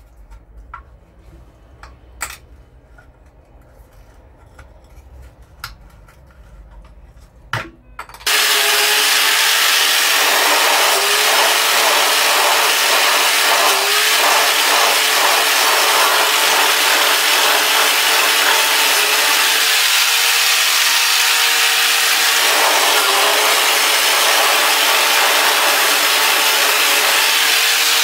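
A few light clicks and knocks, then about eight seconds in a power tool starts and runs steadily with a harsh scouring noise. Its motor pitch dips briefly now and then as it is pressed against the work: the rust and old paint are being stripped from a used steel wheel rim before repainting.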